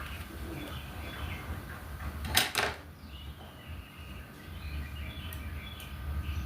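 Small birds chirping in the background over a low steady hum, with one brief clatter about two and a half seconds in.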